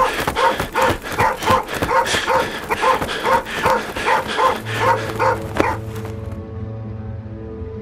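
A hunting dog barking over and over, about two barks a second, stopping a little before six seconds in. Background music with a low held note comes in under the barking about four and a half seconds in and carries on after it.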